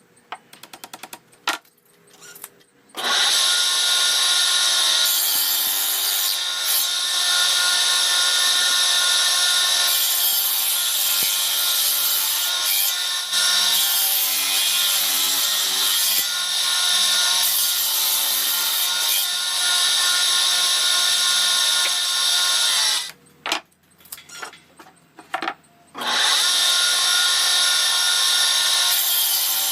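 A power tool cutting wood, its motor whining steadily through the cut. It runs for about twenty seconds, stops for a few seconds with some clicks and knocks, then starts cutting again.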